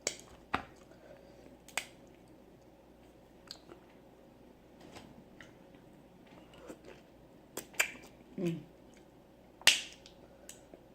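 Eating sounds from working through snow crab and crawfish: scattered sharp mouth smacks and shell clicks, about a dozen at uneven intervals. The loudest comes near the end, just after one short low hum.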